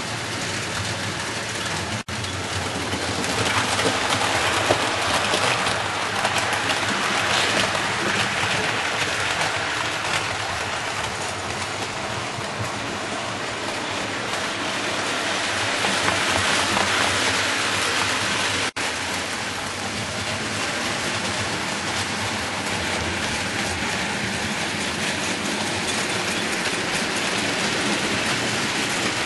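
00 gauge model trains running on the layout's track: a steady hissing rattle of wheels on rail. It breaks off very briefly about 2 seconds in and again near 19 seconds.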